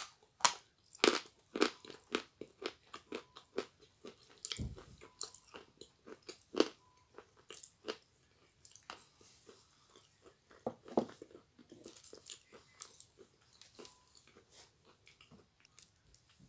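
Biting and chewing a hard lump of Akbulak chalk: a string of sharp, irregular crunches, close together at first and thinning out toward the end.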